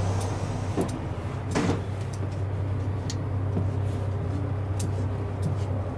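Steady low drone inside the cabin of a KiHa 183-series diesel railcar. A few light clicks and a short swish come about a second and a half in.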